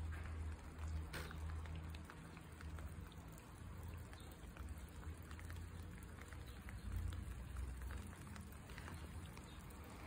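Water dripping and trickling down a wet stone wall from its drainage pipes: many scattered drops tapping, over a steady low rumble.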